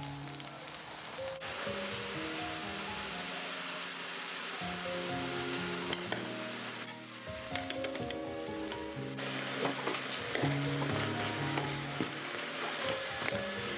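Potato tikkis shallow-frying in hot desi ghee, sizzling steadily, the sizzle growing louder about a second and a half in. Light background music plays underneath.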